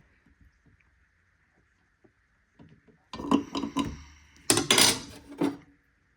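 Metal tools clinking and clattering as they are handled and set down, in two loud bunches about three seconds in and near the end.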